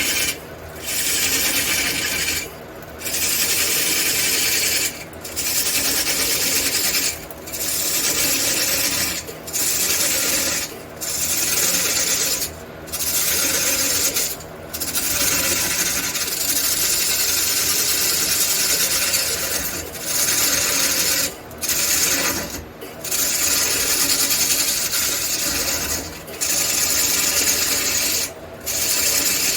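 A tool working a large red cedar blank spinning on a wood lathe, making a scraping hiss in repeated passes of about two seconds, each broken off by a brief pause. There are a couple of longer passes of four to five seconds in the middle.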